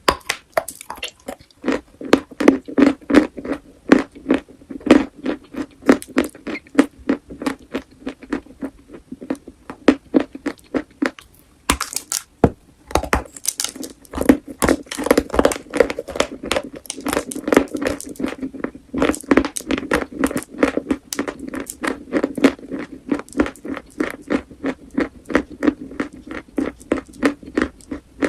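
Chalk being chewed close to the microphone: a fast, steady run of sharp crunches, two or three a second, with a short lull about halfway through.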